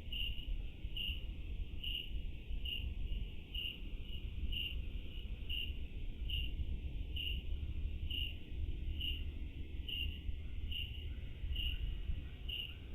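A cricket chirping in a steady, even rhythm, about two short high chirps a second, over a low steady rumble.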